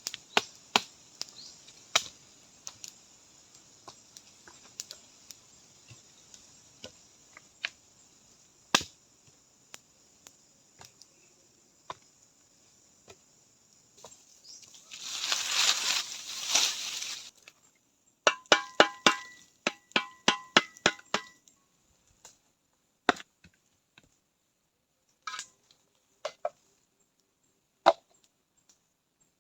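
Scattered sharp knocks and clicks of wood being chopped and handled with hand tools. A rustling scrape comes about halfway through, then a quick run of about a dozen knocks that carry a slight ring.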